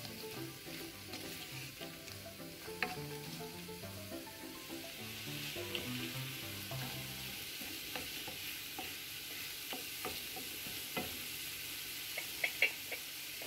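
Diced carrot and snake gourd sizzling gently in a non-stick pan as a wooden spatula stirs them, with scattered sharp clicks of the spatula on the pan, several close together near the end.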